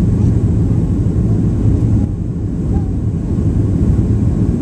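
Steady low roar of a Boeing 737's jet engines and rushing air, heard from inside the passenger cabin as the airliner descends to land.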